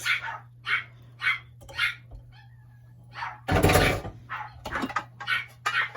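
Dog barking repeatedly in short, separate barks, the loudest about three and a half seconds in, over a steady low hum.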